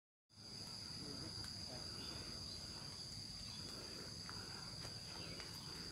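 Insects droning steadily in one continuous high-pitched tone, over a faint low rumble.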